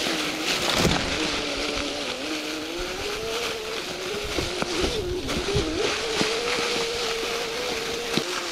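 Electric trials motorcycle's motor whining as it rides over the forest floor, its pitch rising and falling with the throttle, holding steady for a couple of seconds near the end and then dropping. Dry leaves crackle under the tyres, with scattered short knocks as the bike rolls over sticks.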